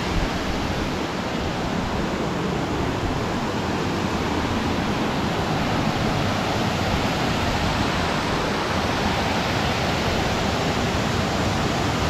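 Loud, steady rush of water from a large waterfall.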